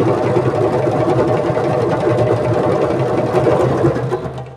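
A group of djembes played together in a fast, continuous roll of rapid hand strikes, which fades away about four seconds in.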